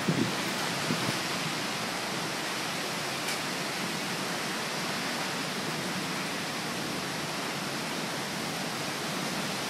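Heavy rain pouring down in a downpour: a steady, dense hiss, with a few faint knocks in the first second or so.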